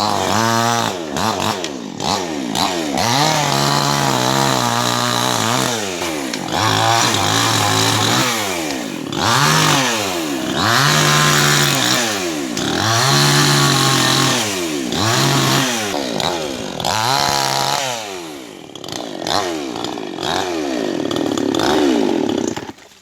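Chainsaw cutting wood, its engine revving up and falling back again and again as the saw is worked through the tree. It cuts off suddenly near the end.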